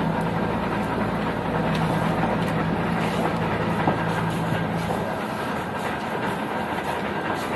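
A large house fire burning, a steady rushing roar with scattered sharp crackles, over a low steady hum that stops about five seconds in.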